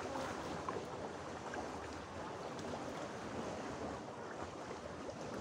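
Small sea waves washing and splashing against shoreline rocks: a steady hiss of surf.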